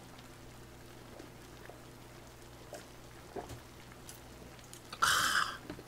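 A man drinking makgeolli in long draughts from a plastic jug: a few faint gulps, then a short, breathy exhale about five seconds in.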